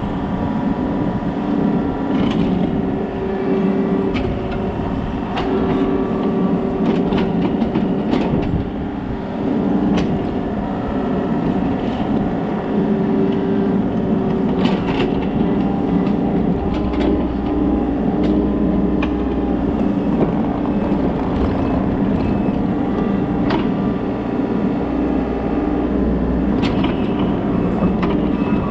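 Kobelco SK35SR mini excavator's diesel engine running steadily at working throttle, with scattered sharp clanks and knocks from the machine at work.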